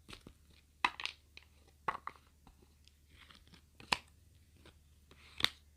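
Tarot cards being handled: a handful of sharp, spaced clicks and snaps with faint rustling between them.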